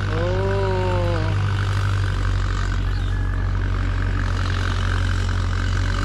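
Tractor engine running steadily under ploughing. A short drawn-out voice call rises and falls in the first second.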